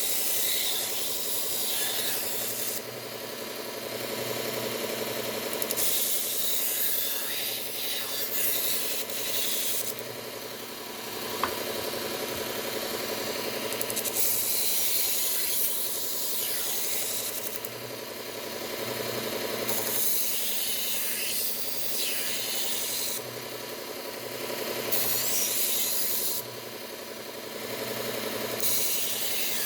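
Bucktool belt sharpener running at slow speed with a steady motor hum, as a knife blade is drawn across its 120-grit Cubitron abrasive belt. The blade passes come as hissing grinds of a few seconds each, with quieter gaps between them as the blade is lifted and repositioned.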